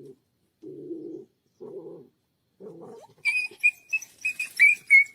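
A dog vocalising: four short, low grumbles, then a quick run of loud, high-pitched squeals about three seconds in.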